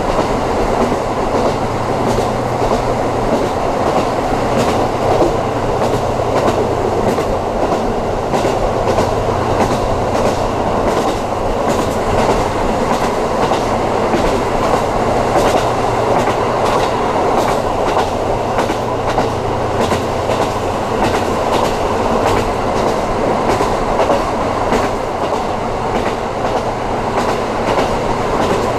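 KiHa 54 diesel railcar running steadily along the line, heard from inside the car: the diesel engine drones low and steady while the wheels click over the rail joints again and again.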